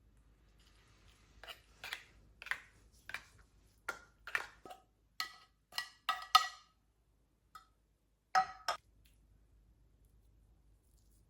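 Kitchenware being handled: a string of irregular knocks and clinks, some ringing briefly like dishes or utensils touching, ending with two quick knocks.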